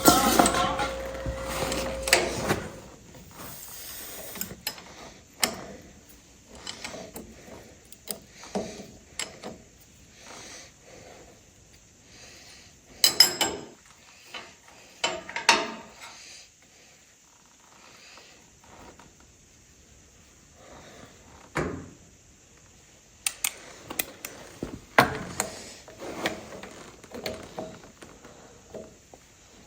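Scattered metallic clicks, clinks and knocks of hand tools working on a tractor's ignition coil and its mounting, with a louder clatter in the first couple of seconds.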